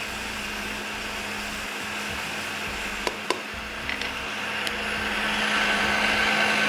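Electric blender running steadily, grinding a thick tamarind-and-date chutney: a constant motor hum under a whirring rush, growing louder from about five seconds in. A couple of sharp clicks about three seconds in.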